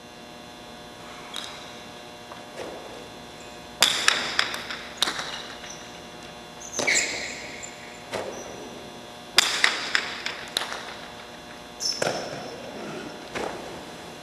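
Sharp cracks of a jai alai pelota striking the wall and floor during a rally, about a dozen impacts at uneven intervals, each ringing on briefly in the large fronton hall.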